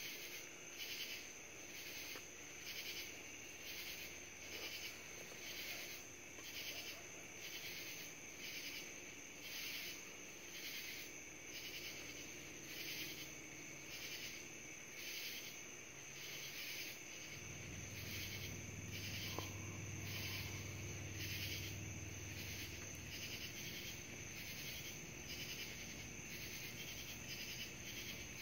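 Night insects chirping in an even rhythm, about once a second, over a steady high trill. About two-thirds of the way through, a low rumble of distant thunder rises and fades over several seconds.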